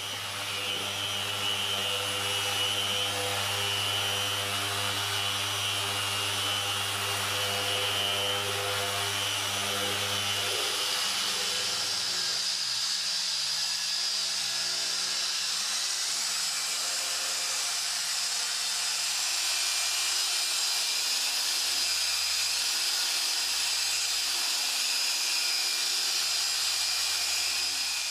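Small handheld machine polisher running steadily while cutting the paint during a two-stage paint correction, a motor hum with a hiss over it. Its tone shifts about ten seconds in and again around sixteen seconds.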